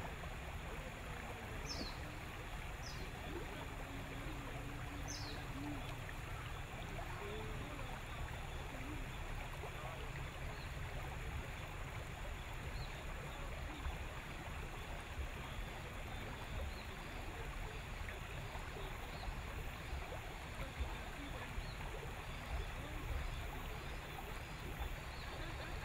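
Steady rushing of river water and wind around a small open boat, with a low rumble underneath. A few short, high, falling bird chirps come in the first few seconds.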